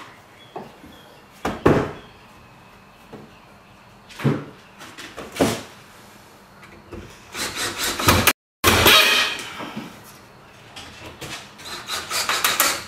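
A few separate knocks of wood handled on a workbench, then a cordless drill driving screws into a wooden frame in several runs, broken by a brief dropout about halfway through.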